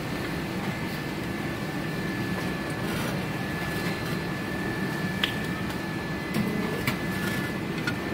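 Steady workshop machine hum with a thin high whine. A few light metal clinks come from the steel cement-tile mould and its metal pattern divider being handled, about five seconds in and near the end.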